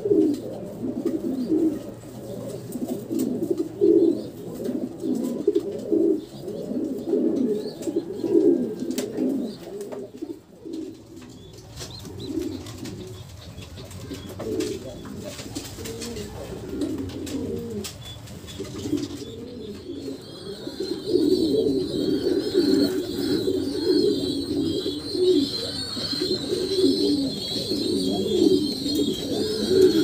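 Domestic pigeons cooing in a loft: many low coos overlapping without a break.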